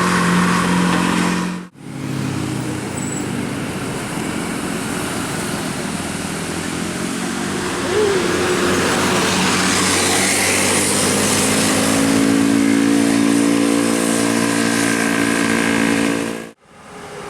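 Large bus engines running and revving, in separate clips cut together with a brief drop to silence about two seconds in and another near the end.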